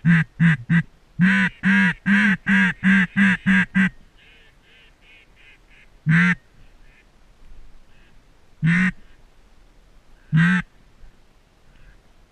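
Duck quacking: a fast, loud series of about a dozen quacks in the first four seconds, then a run of fainter quacks, then three single loud quacks spaced a couple of seconds apart.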